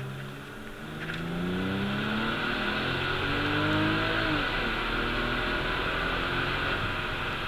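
Porsche engine heard from inside the cabin, accelerating with its pitch climbing steadily, then falling off abruptly about four seconds in. After that, loud wind and road noise takes over.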